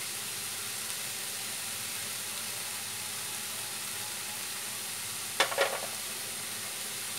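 Chopped red amaranth leaves (lal shak) sizzling steadily as they fry in mustard oil in a kadai. A brief clink about five and a half seconds in.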